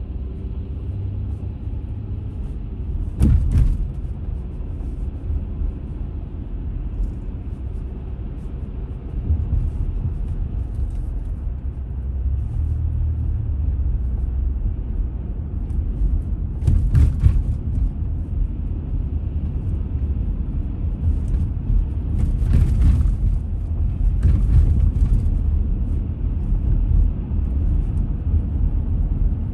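Car cabin noise while driving: a steady low rumble of engine and tyres on the road. A few short knocks come through, one about three seconds in and several more past the middle, as the wheels go over cracked, patched pavement.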